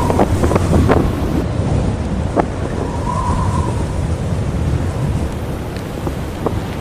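Strong blizzard wind buffeting the microphone in a continuous low rumble with a hiss above it, and a few sharp clicks in the first second.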